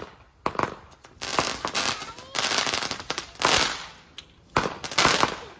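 Consumer fireworks going off: a run of sharp bangs and crackling, hissing bursts, several in a row through the few seconds.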